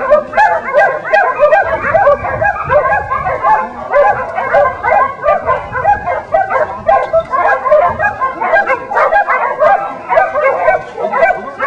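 Dogs barking and yipping rapidly and continuously, several short high barks a second overlapping one another.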